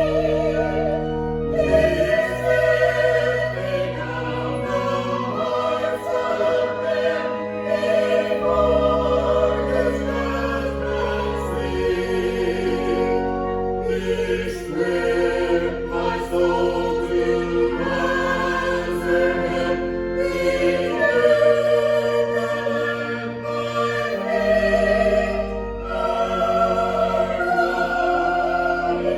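Sacred choral music: a choir singing slow, held phrases with vibrato over sustained instrumental chords and long bass notes that change every few seconds.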